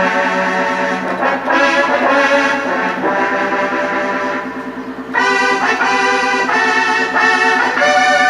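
Roland D-50 synthesizer playing a band-trombone patch: a melody of held brass notes, with a brighter phrase starting about five seconds in.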